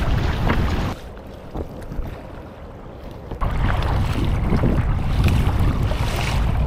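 Wind buffeting the microphone while a kayak is paddled across open water, with water splashing from the paddle strokes. The wind noise eases about a second in and picks up again past the middle.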